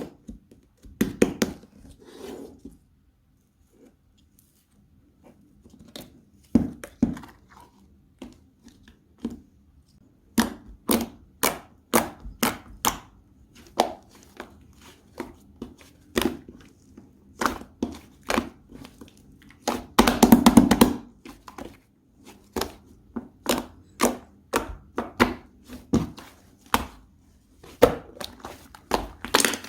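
Slime being pressed and poked by hand, giving sharp clicks and pops about one to two a second, with a longer, denser squish about twenty seconds in.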